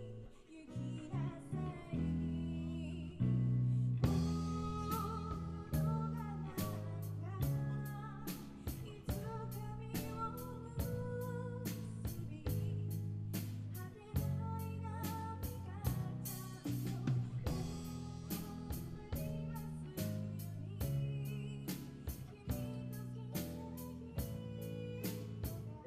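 Live rock band playing, with guitar and bass and a drum kit that comes in about four seconds in and keeps a steady beat.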